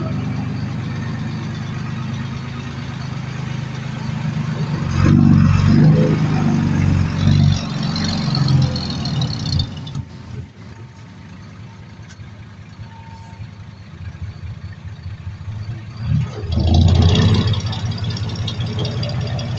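Heavy diesel engines of earthmoving machinery running, with the engine note swelling twice under load: about five seconds in for several seconds, and again near the end. Between the two swells is a quieter spell.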